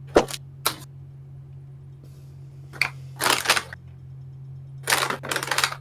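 Cardboard advent calendar being handled and torn open: a handful of short crackles and rips of cardboard, the longest near the middle and near the end, over a steady low hum.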